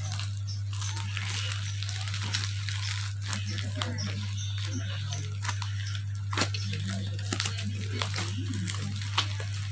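Packaging being handled, crinkled and torn open in irregular crackling rustles and clicks, over a steady low hum.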